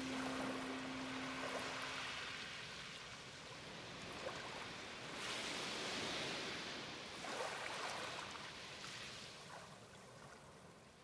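Sea waves washing ashore in slow surges a few seconds apart, fading out near the end. A held music note dies away in the first couple of seconds.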